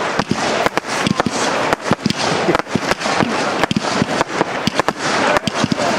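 Aerial fireworks going off: a rapid, irregular string of bangs and pops, several a second, over a continuous hiss.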